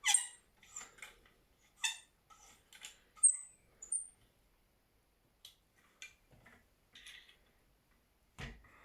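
Scattered light clicks and knocks, a dozen or so short separate ones, from a takedown bow's limb being fitted and bolted onto the riser. Brief high chirps are heard about three to four seconds in.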